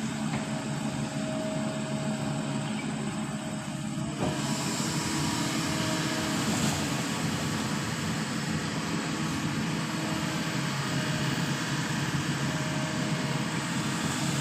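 Long-arm excavator's diesel engine running steadily, growing louder and harsher about four seconds in as it takes on more throttle or load.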